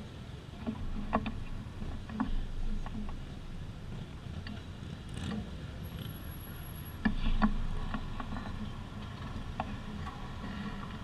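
A steady low engine rumble with scattered clicks and knocks, a little louder about seven seconds in.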